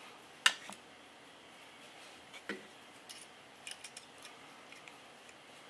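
Clicks of a Glock 17 Gen 4's small parts being handled and fitted into its polymer frame during reassembly: one sharp click about half a second in, then several lighter clicks and taps.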